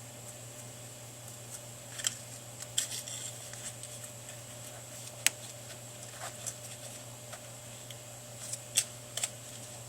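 Scattered light clicks and taps of hands fitting thin centering shims around the cone of a car audio speaker, with a sharper click about five seconds in, over a steady low hum.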